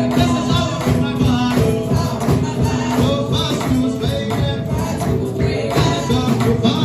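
Upbeat gospel praise music with a steady, driving beat, tambourine and singing.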